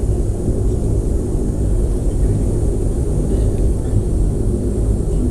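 Fixed-wing aircraft's engines running with a loud, steady low rumble and a faint hiss above it.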